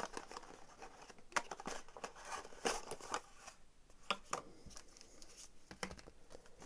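Packaging being handled: a black cardboard box slid open and a clear plastic ear-tip case picked up, giving scattered soft rustles, scrapes and clicks.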